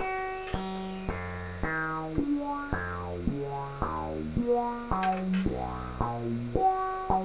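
Sequenced notes from a PAiA modular synthesizer: two oscillators step through a repeating pattern of about two notes a second, mixed through two filters. The tone brightens and darkens from note to note as an LFO sweeps the second filter.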